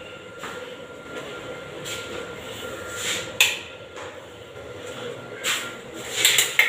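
Metal grille gate rattling and clanking several times, loudest near the end, over a steady mechanical hum.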